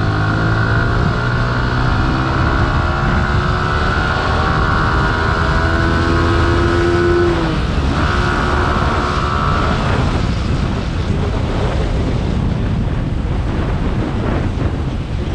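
Yamaha R15 V3's 155 cc single-cylinder four-stroke engine pulling hard in third gear, its pitch rising steadily, then shifting up to fourth about seven and a half seconds in. About two seconds later the throttle closes and wind rush over the microphone takes over as the bike slows.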